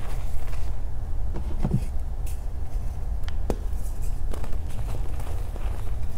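Reformed gym chalk being crushed and crumbled by hand: a steady low rumble with a few sharp cracks.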